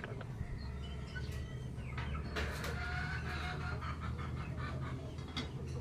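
Faint bird calls and clucking, like chickens, over a low steady hum, with a couple of light clicks.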